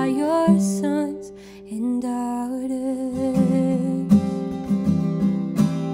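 A woman singing to her own strummed acoustic guitar. Her sung line ends about a second in, and from about four seconds in the guitar is strummed in a steady, stronger rhythm.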